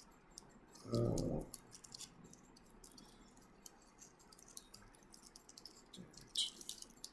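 Faint, scattered small clicks and ticks of a stainless steel watch and its plastic packaging being handled, with a slightly louder cluster of clicks near the end.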